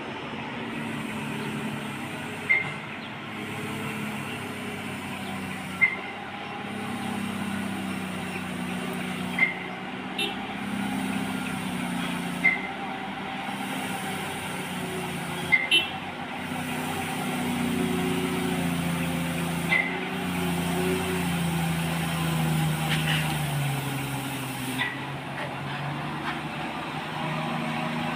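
Heavy truck diesel engines running, their note wavering and then falling in pitch about three quarters of the way through. Short sharp clicks recur every three to four seconds over it.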